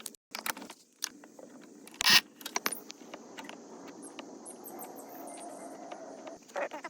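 Light clicks, taps and scrapes of paintless dent repair tools working a dent in a car door panel, with one sharper knock about two seconds in.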